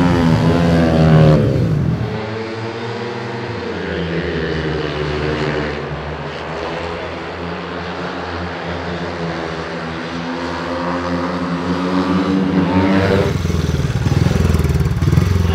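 Speedway motorcycle engines, 500 cc single-cylinder methanol-burners, running at high revs: the pitch rises in the first second or so, sags through the middle, and climbs again near the end.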